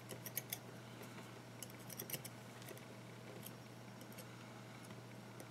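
Faint scattered clicks and light scrapes of a thin metal tool against the coils and deck of a rebuildable dripping atomizer as cotton wick is pulled through a coil. They come mostly in the first two seconds or so, over a steady low hum.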